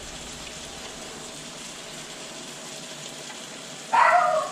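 Steady watery hiss of hot broth simmering in a stockpot and being ladled into a bowl, with a short loud call about four seconds in.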